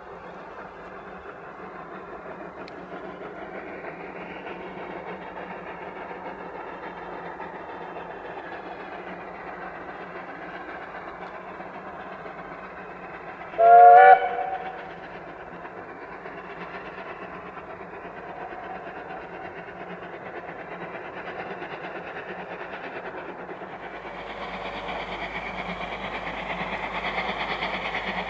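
Narrow-gauge steam train running steadily, with one short whistle blast from the locomotive about halfway through, sliding up slightly in pitch as it sounds. The running noise grows louder near the end.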